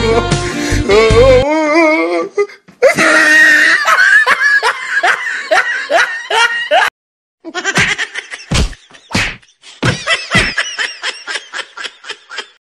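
Background music ends within the first two seconds, followed by loud laughter in quick repeated 'ha' pulses. The laughter comes in two stretches with a brief silent break about halfway through.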